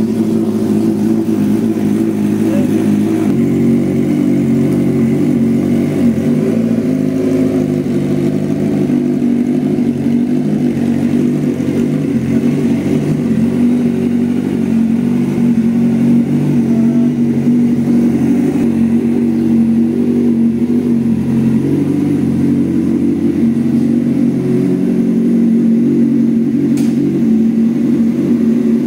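Honda CBR1000RR-R Fireblade SP's inline-four engine idling steadily through an aftermarket SC Project exhaust, loud even with the catalytic converter still fitted, warming up from cold.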